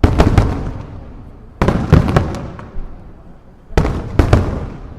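Aerial fireworks shells bursting in three quick clusters of booms, one about every second and a half to two seconds. Each bang is followed by a fading rumble.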